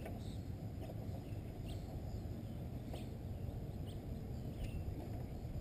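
Outdoor ambience: a steady low rumble with a few faint, short bird chirps scattered through it and a couple of light clicks.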